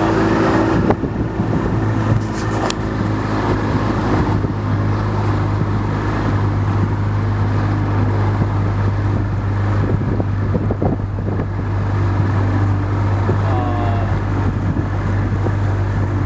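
A motorboat's engine running steadily underway with a low, even hum, with wind buffeting the microphone.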